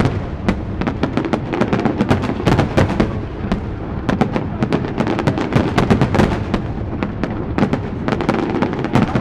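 Aerial firework shells bursting in a dense barrage: many sharp bangs a second, overlapping one another with no real pause.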